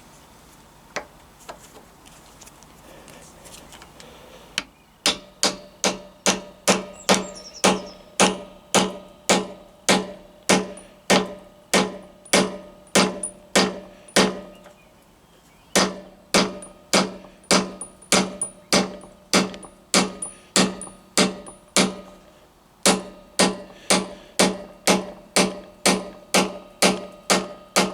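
Hammer blows driving a new metalastic rubber bush into the handlebar mounting hole of a motorcycle's top yoke through a drift tool. After a few light taps the strikes come steadily at about two a second, each with a short ring, in three runs with brief pauses.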